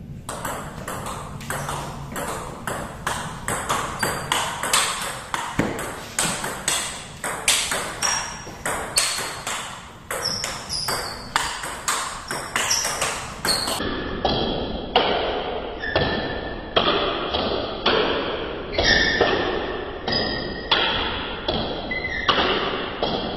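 Table tennis ball being rallied: sharp, regular pings of the celluloid ball off paddles and table top, about two a second, keeping on without a break.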